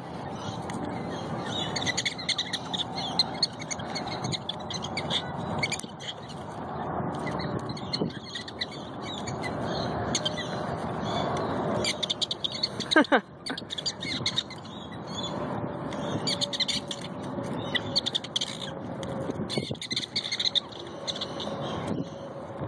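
Prairie dogs squabbling over food, a steady patter of short high chirps and chatter. One loud call slides down in pitch about two-thirds of the way through.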